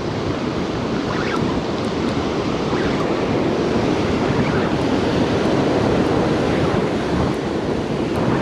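Ocean surf breaking and washing up the beach, with wind buffeting the microphone: a steady, unbroken wash of noise.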